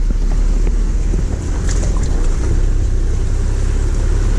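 Jeep Gladiator crawling over a rocky trail: a steady low rumble of engine and drivetrain, with a couple of sharp knocks of rock against the truck about two seconds in.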